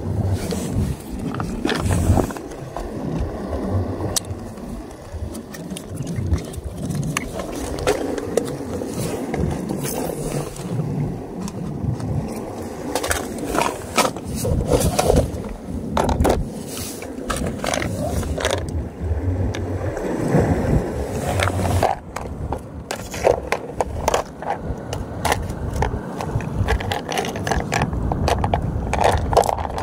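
Close handling noise: a vinyl dry bag and clothing rustle and scrape against the microphone, with scattered clicks and knocks throughout.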